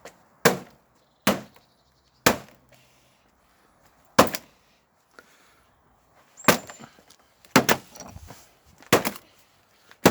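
A series of about seven sharp chopping strikes, each short and separate, spaced roughly one to two seconds apart.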